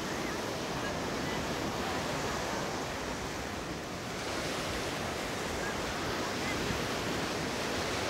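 Steady rush of sea surf breaking on the shore, mixed with wind buffeting the microphone.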